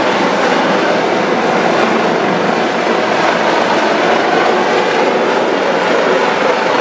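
Helicopter flying overhead: steady, loud engine and rotor noise.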